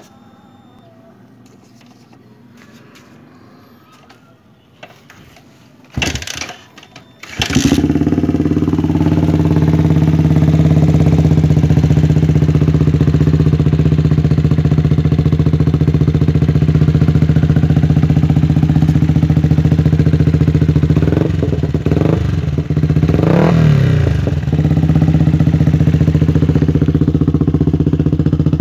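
Yamaha Vixion single-cylinder motorcycle engine with an aftermarket muffler being started: a brief first try about six seconds in, catching a second or so later, then idling steadily with a deep, bassy exhaust note. A few quick throttle blips about three quarters of the way through.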